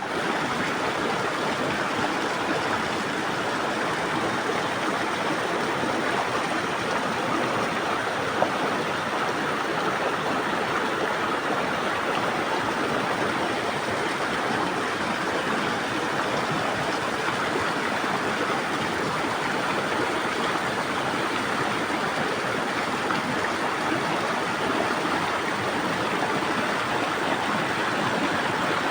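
River water rushing over rocks in a steady, unbroken wash, with one brief click about eight seconds in.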